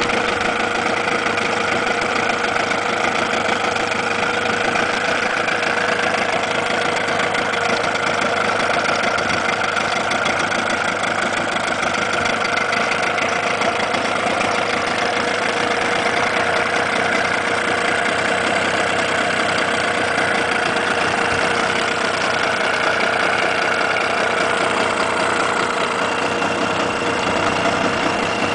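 1991 Suzuki DT9.9 two-cylinder two-stroke 9.9 hp outboard motor running steadily at idle with its cowling off.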